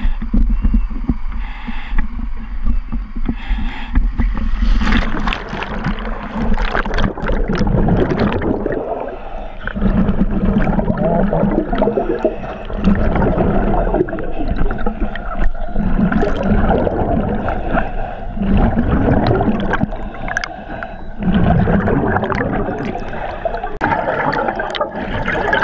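A diver's breathing and gurgling exhaust bubbles over the dive radio, surging in cycles every two to three seconds over a steady low hum.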